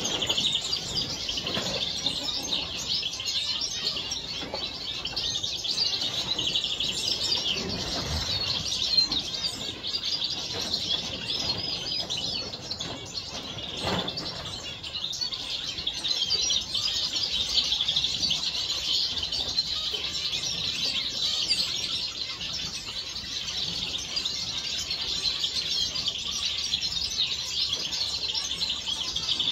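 A mixed flock of captive finches, zebra finches and parrotfinches among them, chirping and calling continuously over one another in many short, high notes.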